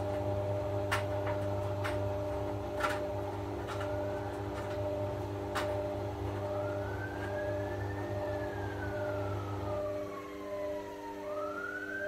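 Front-loading washing machine turning its drum with a puffer jacket inside: a steady motor hum, a few sharp clicks in the first half, and from about halfway a whine that slowly rises and falls, then starts rising again near the end.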